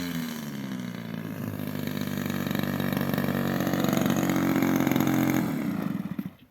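The DLE 20 cc single-cylinder two-stroke petrol engine of an RC model plane is running. Its pitch falls in the first second or so, then it holds a steady note that grows louder, and it stops abruptly near the end.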